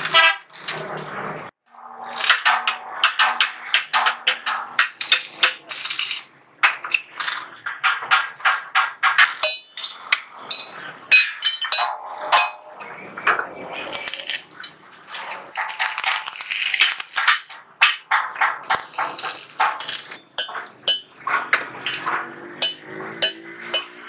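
Hand tools working thin sheet steel: a rapid, irregular run of metallic clinks and hammer strikes, each with a short ring, as steel parts are bent with pliers and hammered on a length of railway rail used as an anvil.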